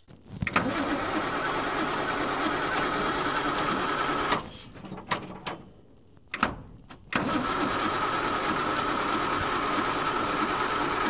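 Starter motor cranking a Perkins 6354 six-cylinder diesel without it firing, its fuel lines cracked open to purge old diesel and air. There are two long bursts of cranking with a steady whine, separated by a pause of about three seconds with a few clicks.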